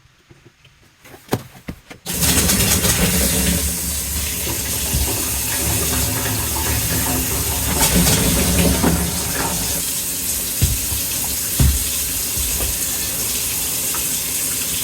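Newly installed Moen kitchen faucet running full into the sink, turned on about two seconds in and shut off suddenly at the end: the water test of the fresh install for leaks.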